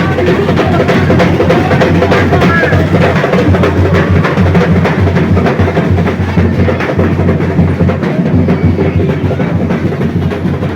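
Loud drum-led percussion music from a bumba-meu-boi group, a dense steady beat of many drum strokes with a strong bass drum underneath.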